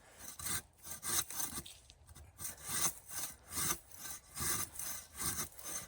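A hand saw cutting through a Christmas tree trunk, steady back-and-forth strokes of the blade through the wood at about one stroke a second.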